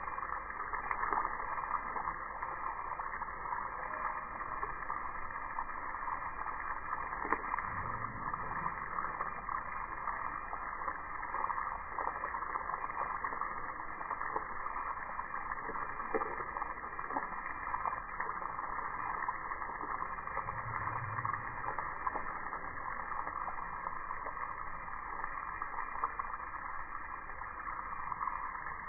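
Water spray from a garden hose hitting grass and a block wall, heard slowed down: a steady, dull rushing hiss with all the treble cut off.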